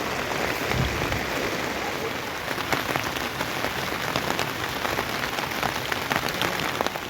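Steady rain falling, with many separate drops striking nearby surfaces.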